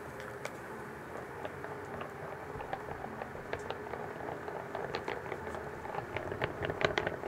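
Wire balloon whisk stirring a thick cream mixture in a glass bowl: soft wet squishing with light clicks of the wires against the glass, getting quicker and louder in the second half.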